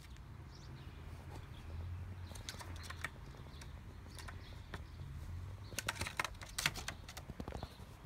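Jackdaw pecking at peanut crumbs on a wooden table: sharp beak taps in quick clusters, a few about three seconds in and a louder run near the end.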